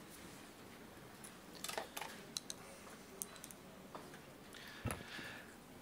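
Quiet conference-hall room tone with a few faint scattered clicks, and a soft thump near the end.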